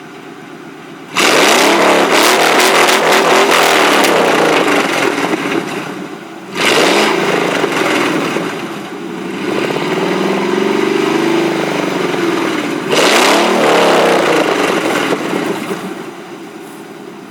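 A Ford Explorer's OHV engine with an aftermarket exhaust, idling, then revved up hard three times. Each rev is held for a couple of seconds before dropping back, with a gentler rise and fall between the second and third, and it settles back to idle near the end.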